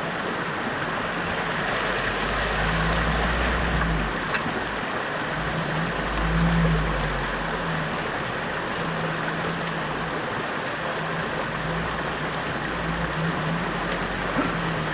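An off-road 4x4's engine running at low revs, its hum swelling and fading several times, under a steady rushing noise.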